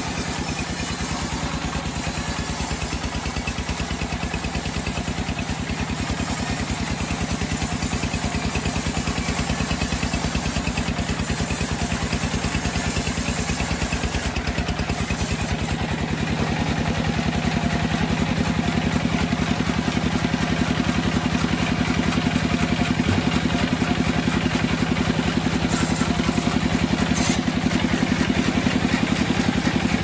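Bandsaw sawmill running steadily while its blade cuts lengthwise through a large log. The machine hums with a fast, even pulse and slowly gets louder.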